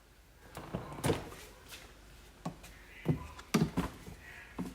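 A few scattered light knocks and thuds, about one every half second to a second, of a refrigerator's doors and drawers being handled.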